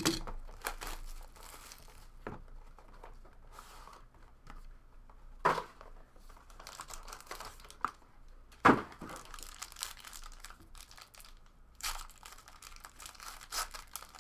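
Trading-card box packaging being torn open and handled: irregular crinkling and tearing of wrapper, with a few sharper rips.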